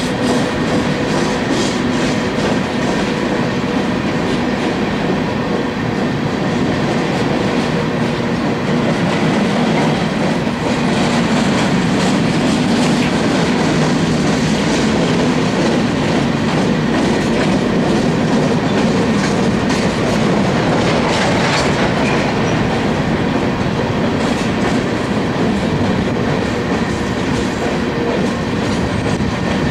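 Empty open-top coal cars of a freight train rolling steadily past, their wheels clacking over the rail joints.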